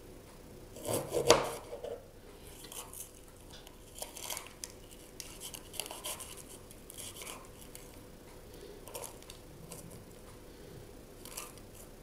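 Small knife cutting into a green sweet pepper and scraping out its seeds over a plastic cutting board: scattered soft scrapes and clicks, with one louder knock about a second in.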